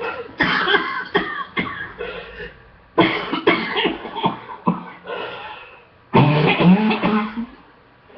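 A woman coughing in fits: a run of quick coughs, a short break, then another run. About six seconds in comes a longer sound with her voice in it. This is a lingering cough from a two-week illness, now easing on a second course of antibiotics.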